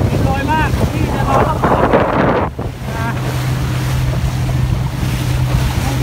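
Boat under way on choppy sea: the engine keeps up a steady low hum beneath the rush of water along the hull and wind buffeting the microphone. A louder rushing surge builds about a second and a half in and cuts off sharply about a second later.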